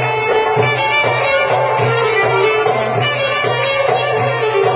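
Traditional-style dance music: a violin melody over a steady drum beat.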